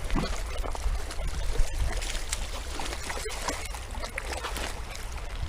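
Wind buffeting the microphone as a low, uneven rumble, over splashing and trickling river water with scattered small clicks.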